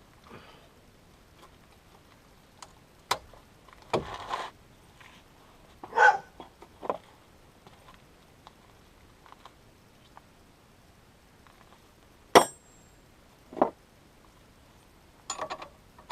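Hand tools and metal parts being handled and set down: a scattered run of separate clinks and knocks, the sharpest a clank with a short metallic ring about twelve seconds in.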